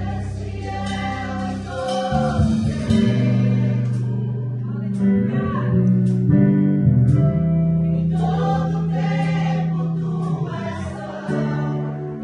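Live gospel worship song: a woman singing over a band of Casio Privia PX-5S digital piano, electric bass and drum kit. The bass holds long sustained notes while cymbals crash now and then.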